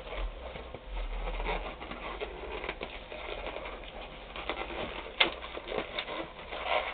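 Latex modelling balloon squeaking and rubbing under the fingers as it is bent and twisted into shape, with a sharp tap about five seconds in.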